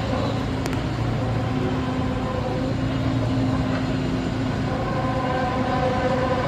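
A steady, low, droning hum made of several held tones over a continuous rumble, growing a little stronger about five seconds in.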